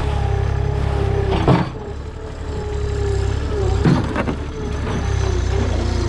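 Machinery running steadily: a low rumble with a steady humming tone over it, and two short knocks, about a second and a half and about four seconds in.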